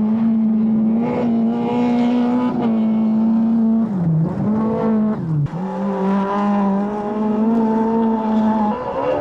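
Skoda Felicia Kit Car rally engine running hard at high revs, its pitch held mostly steady. The revs dip briefly twice around the middle, about four and five and a half seconds in, then climb back and hold again.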